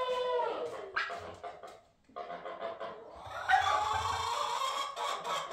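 A dog whining in drawn-out, wavering calls, with a rustling burst of wing flapping from a large white fowl starting about three and a half seconds in.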